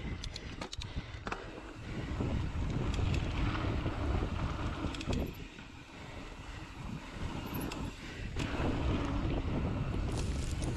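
Mountain bike rolling along a sandy dirt singletrack: wind rushing over the microphone and tyre rumble, swelling twice, with scattered rattling clicks from the bike.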